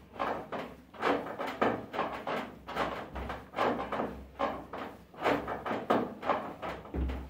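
Soft, wet bread dough being mixed: a train of sticky slaps and squelches, about two to three a second, with a heavier thump about three seconds in and another near the end.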